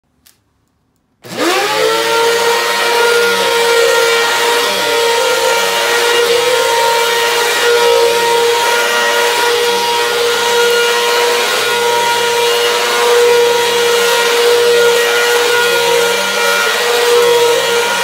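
Upright vacuum cleaner switched on about a second in, its motor rising quickly in pitch to a steady whine, then running steadily as it is pushed back and forth over a rug.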